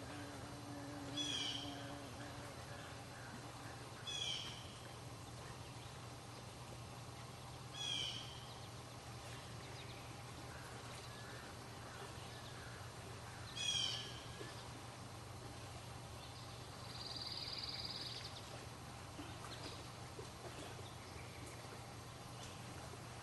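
A bird gives a short, harsh call four times, several seconds apart, over a faint, steady outdoor background with a low hum. A brief buzzy note sounds about two-thirds of the way through.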